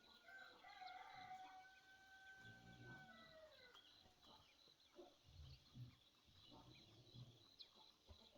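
A rooster crowing once, faintly: one long call held for about three seconds that drops in pitch at the end. A few soft low thuds follow.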